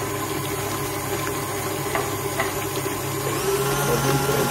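KitchenAid Artisan stand mixer running, its flat beater working thick choux pastry dough in the stainless steel bowl as egg is beaten in. The motor hums steadily and shifts slightly in tone about three and a half seconds in.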